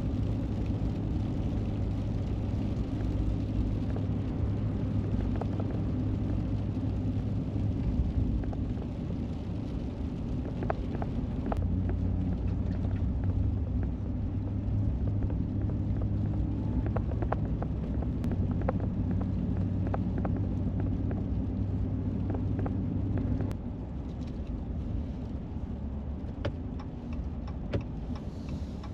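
Pickup truck driving on snowy, icy roads: a steady engine and road rumble with scattered light ticks and clicks. The rumble drops a little in level near the end.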